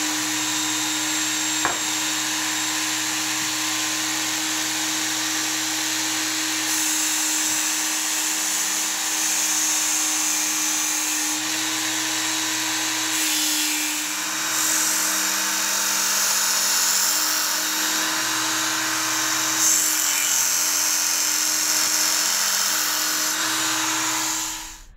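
Work Sharp knife and tool sharpener's electric belt motor running steadily, with the abrasive belt grinding the edge of an axe in stretches, which adds a harsher hiss over the motor's hum.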